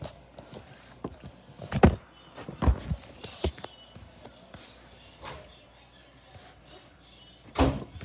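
A few sharp knocks and thumps of hard objects being set down or bumped, the loudest about two seconds in and another near the end.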